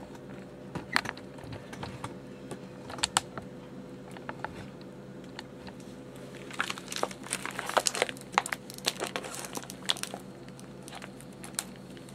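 Scissors snipping through the plastic bag of frozen chicken legs, with the plastic crinkling. A few separate sharp snips come in the first half, then a denser run of snipping and crinkling from about six seconds in.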